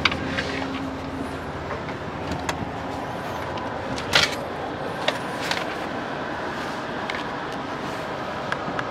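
Steady hum inside an Amtrak sleeper car, with a few scattered clicks and knocks, the sharpest about four seconds in.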